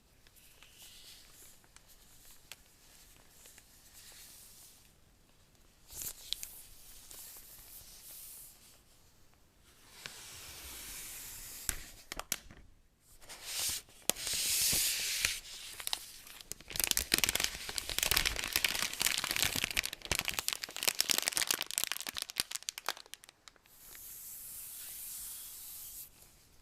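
Packaging of an iPad Pro box being torn open and rustled by hand, in irregular scrapes and tears with a dense stretch of crackling about two-thirds of the way through.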